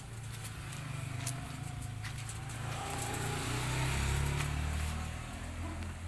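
A passing road vehicle: a low engine rumble that swells to its loudest about four seconds in and then fades away.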